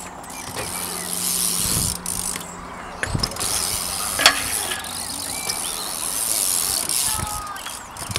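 BMX bike rolling on concrete with the rear hub ticking as it coasts, with a low thud about three seconds in and a sharp knock a second later, the loudest moment.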